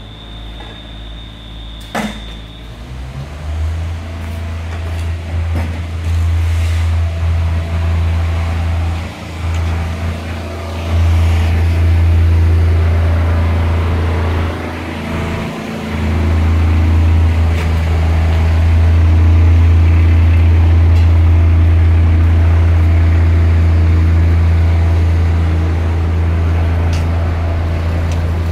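Engine running steadily nearby: a loud, low, even drone that sets in about three seconds in and dips briefly twice.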